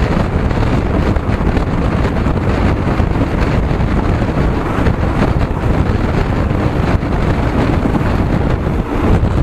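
Steady wind buffeting the microphone, with a vehicle running underneath.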